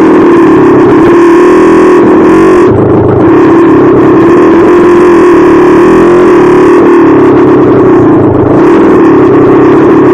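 Engine of a 440cc dirt bike running under load at a slow trail pace, its pitch holding fairly steady with small rises and dips as the throttle is worked.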